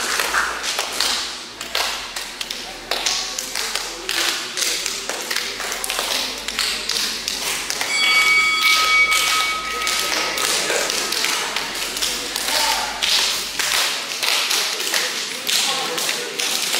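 Many quick, irregular hand slaps and taps from a group of people, with faint chatter under them. A steady high tone sounds for about three seconds, starting about eight seconds in.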